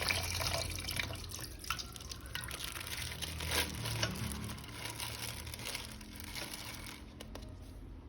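Faint wet handling noises as a plastic toy figure is washed: water dripping and splashing with crinkling and rubbing, dying away near the end.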